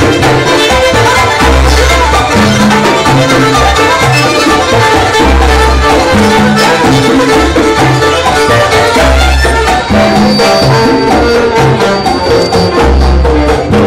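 Live charanga band playing a Latin jazz instrumental: violins over congas, timbales and upright bass, with a steady driving rhythm.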